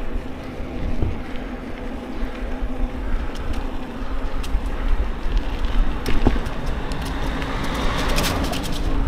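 Mountain bike in motion: wind buffeting the microphone over a steady rumble of tyres on the ground, with a quick run of rattling clicks near the end.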